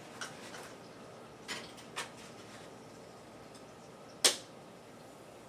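Kitchen things being handled on a cutting board: a few soft taps in the first two seconds, then one sharp clack about four seconds in.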